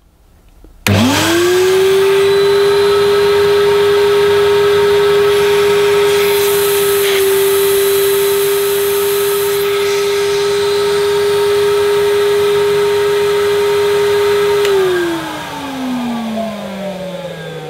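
1984 Hoover Portapower S1126's 800-watt motor switched on about a second in, running up within a second to a steady high whine while pulling against a vacuum gauge on the hose end in a sealed-suction test (it reads about 60 on the gauge). Near the end it is switched off and winds down with a falling pitch.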